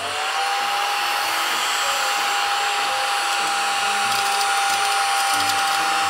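Battery-powered Sonic 'Suzy' desktop vacuum cleaner switched on: its small fan motor spins up in a fraction of a second to a steady high whine over a hiss of rushing air, held evenly as it is pushed over eraser crumbs on a desk.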